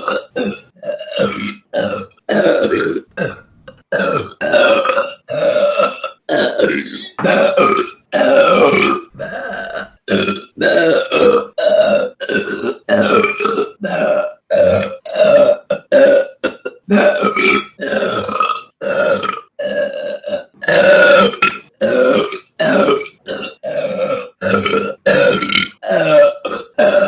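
A woman burping over and over, dozens of short burps one after another at roughly one a second. Each starts and stops abruptly, with a few longer, drawn-out ones among them.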